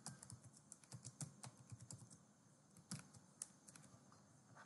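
Faint typing on a computer keyboard: a quick run of keystrokes, then a few scattered ones later on.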